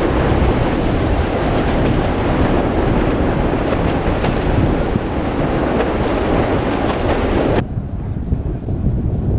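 Steady rushing roar of an erupting volcanic fissure, mixed with wind buffeting the microphone. About three quarters of the way through it cuts off suddenly and a thinner, lower wind noise follows.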